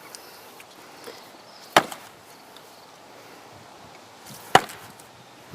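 Sledgehammer striking a wooden bench twice, about three seconds apart, each blow a single sharp crack of wood.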